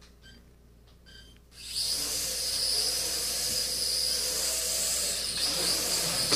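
Traxxas Alias mini quadcopter's four small motors and propellers spinning up suddenly about a second and a half in, then a steady high-pitched buzzing whine as it hovers and flies. A short knock near the end.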